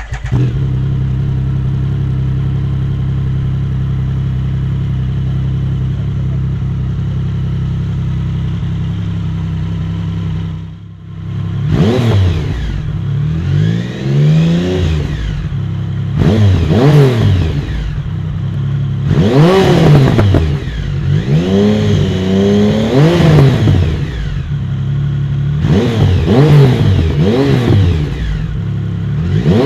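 Triumph Speed Triple 1050's three-cylinder engine breathing through an unbaffled Arrow titanium full exhaust. It idles steadily for about ten seconds. Then it is blipped repeatedly, each rev rising and then falling in pitch, about every two to three seconds.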